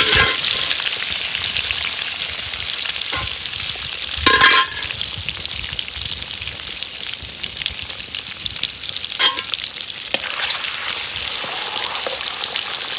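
Food sizzling in hot oil in a cooking pot while a metal spoon stirs it, clinking against the pot. The loudest clink comes about four seconds in and another just after nine seconds.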